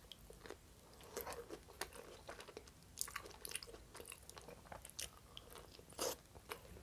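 A person biting and chewing a slice of Hawaiian pizza close to the microphone: irregular crunchy clicks and mouth sounds of eating.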